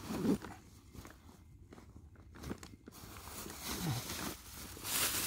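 A plastic bag crinkling and rustling as it is handled, building up and loudest near the end, with a couple of short low vocal sounds.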